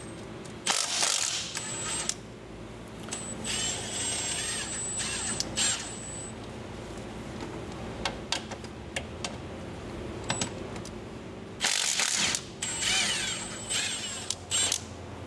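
Cordless impact wrench running on the transmission strainer's bolts in bursts: a short loud burst, then a longer run with a high whine, heard twice. Small metallic clicks come in between.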